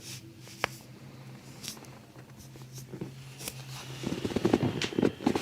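A patient breathing deeply during a breath-assisted chiropractic adjustment, with a single sharp click about half a second in. From about four seconds in comes a louder, breathy, rustling stretch with small clicks.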